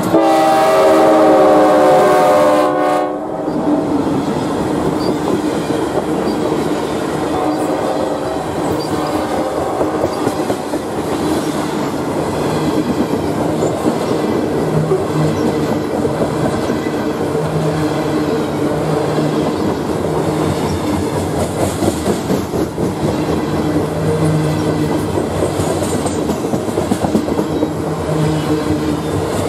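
Norfolk Southern GE Dash 9-44CW diesel locomotives passing close by, sounding a horn for about three seconds at the start, which stops sharply. Then a loaded coal train's hopper cars roll past steadily, their wheels clicking over the rails.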